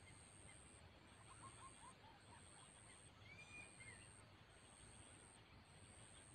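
Near silence with faint outdoor ambience. A few faint, distant animal calls: a quick run of short notes about a second in and a short whistled note a little after three seconds. A faint high-pitched tone pulses on and off about once a second.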